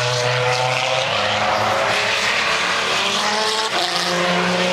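Le Mans prototype race car engines running at speed past the trackside. The engine note is steady and shifts in pitch about a second in and again near the end.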